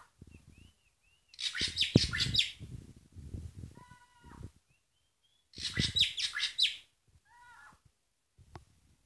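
Caged drongo (srigunting) calling: soft rising-and-falling whistles, then two loud harsh chattering bursts about four seconds apart, with short clusters of falling notes between them.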